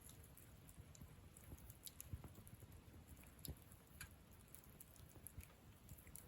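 Wood campfire burning quietly, with faint, scattered crackles and pops at irregular intervals.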